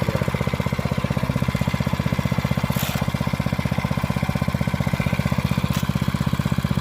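Small pit bike engine running steadily at idle, a fast even chugging with no change in speed.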